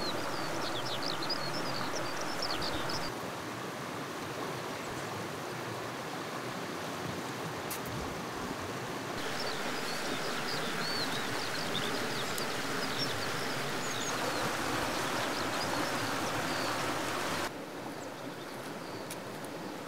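Fast-flowing river rushing over rocks, a steady noise of running water, with small birds chirping now and then, mostly in the first three seconds and again from about nine to fifteen seconds in. The rush steps down in level about three seconds in, up again around nine seconds, and down again near the end.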